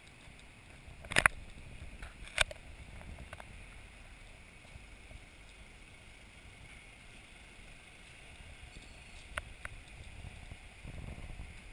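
Low wind rumble on the microphone, with a faint steady hiss and a few sharp knocks: two in the first few seconds and a quick pair near the end, where the rumble grows louder.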